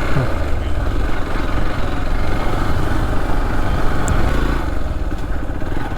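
Motorcycle engine running steadily as the bike is ridden, a continuous low rumble with the even pulsing of the engine.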